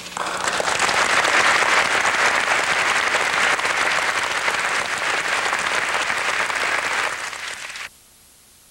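Audience applauding steadily. It starts suddenly and cuts off abruptly about eight seconds in.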